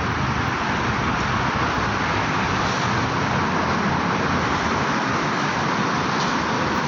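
Steady road traffic noise from a busy road under a tollway: a continuous wash of cars and motorbikes.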